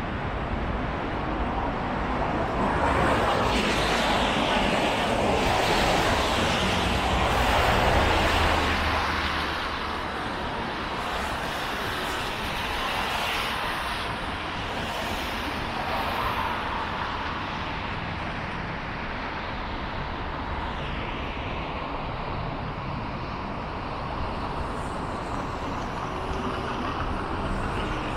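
Road traffic on a busy city avenue: a steady hum of passing cars, with one louder vehicle going by from about three seconds in that fades after about nine seconds.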